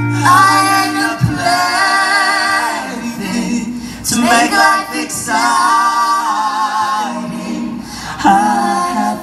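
Woman singing a slow melody live through a PA, with long held notes that waver in pitch and a few short breaks between lines, and little instrumental backing.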